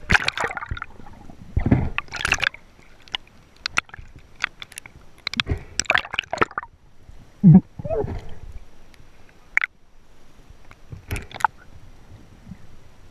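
Water splashing and bubbling around an action camera as it goes under the sea surface, with irregular knocks and gurgles while underwater. A short, low pitched sound about seven and a half seconds in is the loudest moment.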